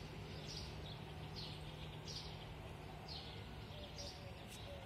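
A bird chirping over and over, short high calls that fall in pitch, about one every second, over a steady low background hum.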